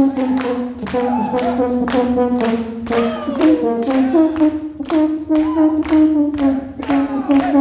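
A crowd singing along together, holding notes that step up and down, over steady rhythmic clapping of about two claps a second.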